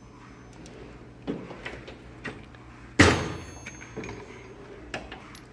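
A metal tool chest drawer being moved, with a few light clicks and then one sharp, ringing metallic bang about three seconds in.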